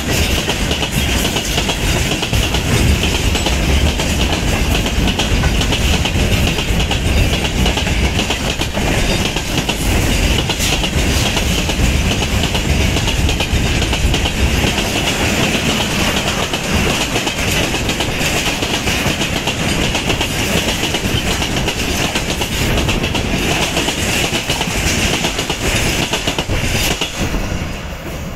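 Freight train wagons (tank cars, gondolas and hopper cars) rolling past close by: a steady rumble with wheels clattering over the rail joints. The sound drops as the last wagon goes by near the end.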